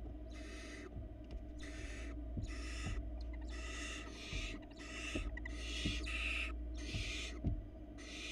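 Barn owl nestlings giving their rasping, hissing begging calls in a steady series, about one every two-thirds of a second, while being fed. Several soft knocks come from movement in the nest box, the loudest near the end.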